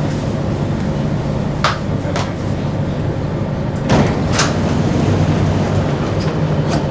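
Singapore MRT train standing at the platform with its steady low hum, while the passenger doors release and slide open: a couple of sharp clicks about two seconds in, then a louder knock and a thump about four seconds in as the doors open.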